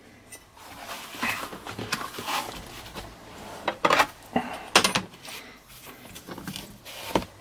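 Leather and a steel rule being handled and set down on a plastic cutting board: an uneven string of knocks and light clatters with rustling between them, the loudest two about four and five seconds in.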